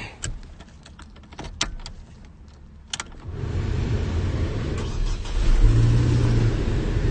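A few clicks and knocks, then a 2010 Chevy Colorado pickup's engine starts about three seconds in and runs steadily, rising briefly about two seconds later. It is the truck starting after its no-crank, no-start fault was repaired.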